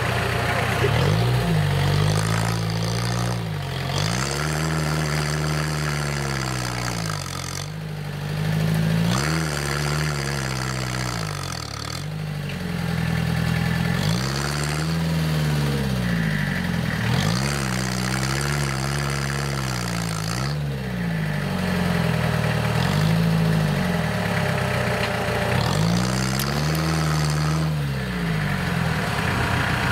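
Mini tractor engine revving up and down over and over, its pitch rising and falling every two to three seconds.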